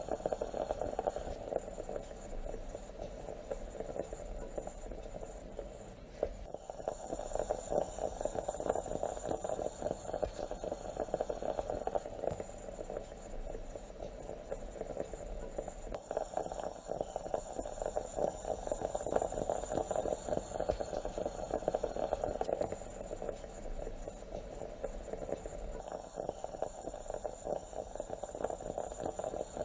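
Moka pot gurgling and sputtering steadily as the brewing coffee is forced up into the upper chamber, a dense continuous crackle.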